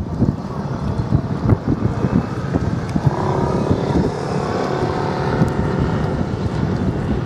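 Low, steady rumble of a boat engine running, mixed with wind buffeting the microphone. A faint steady hum joins in about three seconds in and fades again near six seconds.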